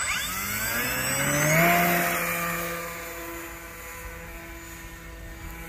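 Flex Innovations Mamba 10 RC biplane's electric motor and propeller throttling up for takeoff: a whine that rises in pitch for about a second and a half, then holds steady and grows fainter as the plane climbs away.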